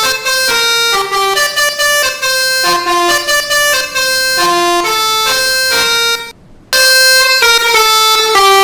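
Telolet basuri bus horn playing a melody, one horn note after another. It breaks off briefly about six seconds in, then resumes louder.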